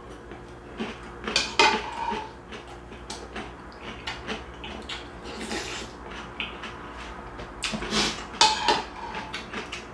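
Metal spoon clinking against a ceramic soup bowl, with the loudest strikes about a second and a half in and again near eight and a half seconds, each leaving a short ringing tone. Between them, small clicks and a slurp of hot soup from the spoon.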